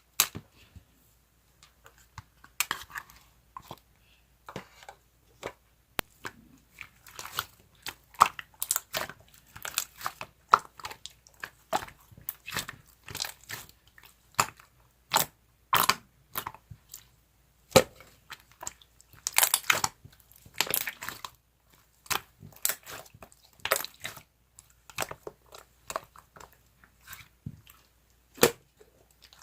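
Slime being pressed, folded and stretched by hand, giving irregular sticky pops and crackles as air pockets burst.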